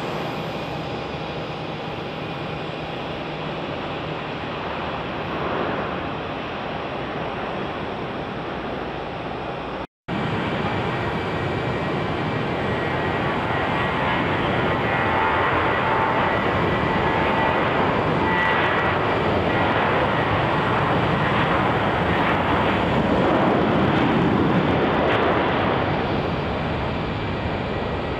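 Airliner jet engines running, a steady rush. After a brief break about ten seconds in, the engines of an Airbus A321 on the runway are louder, with a thin whine over the rush, and swell to a peak a few seconds before the end.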